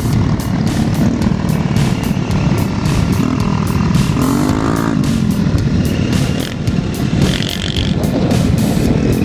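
Motor scooter engines running on the move, with wind buffeting the microphone. About four seconds in, one engine revs up and drops back.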